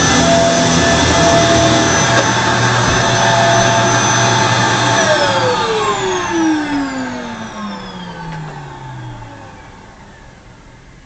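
2006 Kenmore Progressive vacuum cleaner running steadily, then switched off about five seconds in. Its motor winds down in a long falling whine that fades away over the next four seconds.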